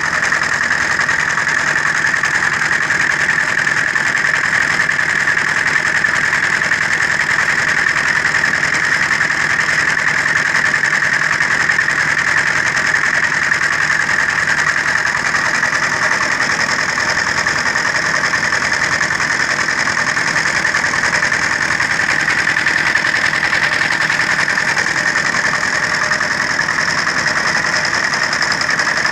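Diesel engine running at a steady speed, powering a concrete mixer.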